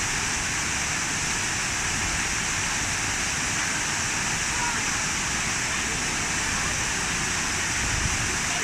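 Steady rush of falling water in a park, an even hiss that holds at one level throughout.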